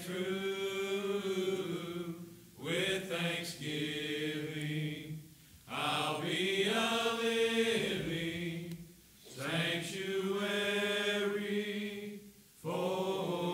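Men praying aloud in long, drawn-out phrases held on fairly steady pitches, with short breaks about every three seconds.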